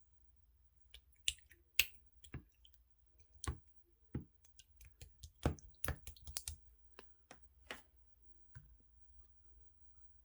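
Clear slime being pressed and worked by hand, giving off a string of irregular sharp clicks and small pops.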